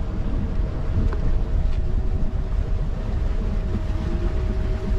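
A boat engine running steadily, a low rumble with a constant hum above it, while wind buffets the microphone.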